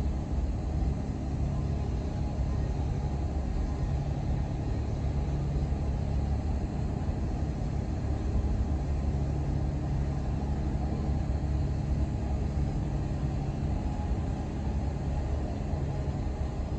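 A fishing boat's diesel engine running steadily at low revs as the boat manoeuvres in the harbour, a constant low engine drone.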